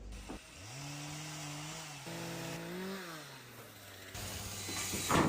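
A cow mooing: one long low call of about three seconds that rises, steps up in pitch midway and falls away at the end. A sharp knock comes at the very end.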